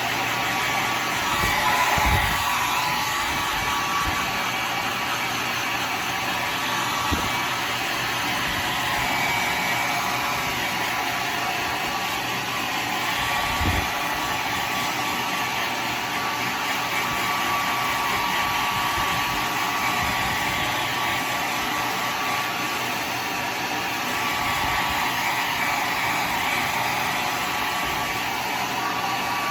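Hand-held hair dryer running steadily on high, blowing a freshly washed, damp wig dry. There are a few soft low knocks along the way.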